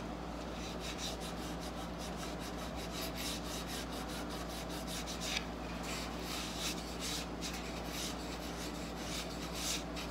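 Quick back-and-forth rubbing strokes on an oak joint, working very fine oak sawdust into the glue squeezing out of it, with a short pause about halfway.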